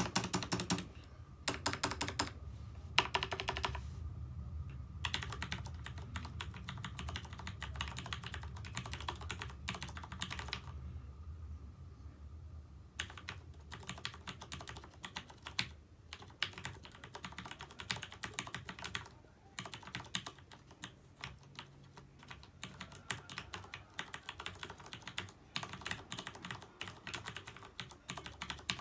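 Mechanical keyboard with Cherry MX Brown tactile switches being typed on: runs of rapid keystroke clicks with a few short pauses between bursts.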